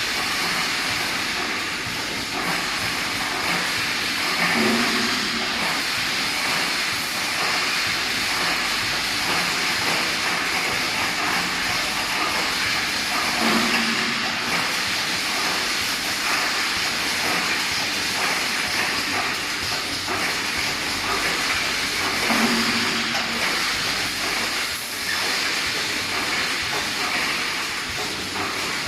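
Automatic steel wire mesh welding machine running: a steady hiss and crackle, with a brief louder working stroke and a short hum about every nine seconds as the machine cycles.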